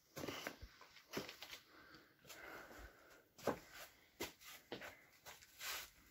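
Footsteps on loose rock and gravel: a faint, irregular string of steps, scuffs and small stone knocks.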